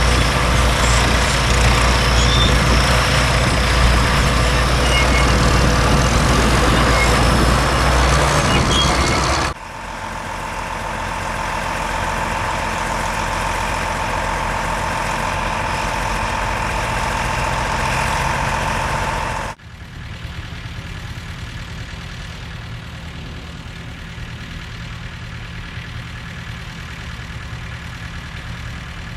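Heavy tractor engines running, heard in three joined field recordings. The sound changes abruptly about a third and two-thirds of the way through, from a loud, noisy stretch to a steadier one with a held tone, then to a quieter low rumble.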